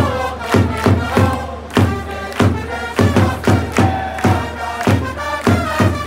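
Japanese baseball cheering section playing a cheer song: trumpets over loud bass-drum beats, about two to three a second, with the crowd chanting along.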